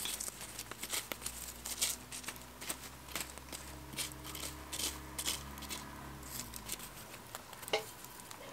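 Wood embers crackling, with many small irregular clicks and pops, over a faint low hum that stops about seven seconds in.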